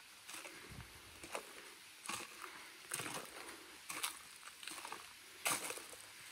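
Footsteps of a person walking, a louder step about every second, over a faint steady hiss.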